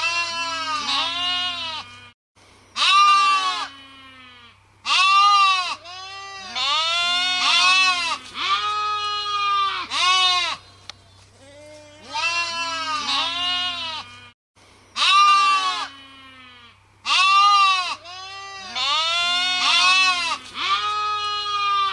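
Several sheep bleating, their calls overlapping in bursts of a few seconds with brief pauses between, over a faint steady low hum.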